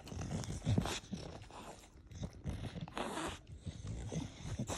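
English bulldog making a string of short, noisy breathy sounds mixed with brief low grunts.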